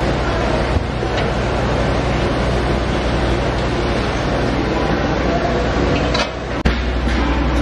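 Factory machinery running with a steady low hum over broad mechanical noise. It drops briefly about six seconds in, then a sharp click, and it runs on.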